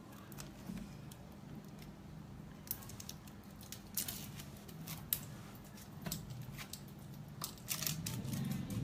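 Sharp little clicks, snaps and rustles of cosmetic packaging being handled and opened, coming in quick clusters over a faint low hum.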